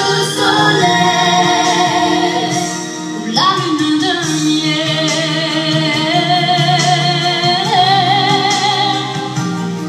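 A song with a woman singing over instrumental accompaniment. Her voice slides up about three and a half seconds in and later holds a long note with vibrato.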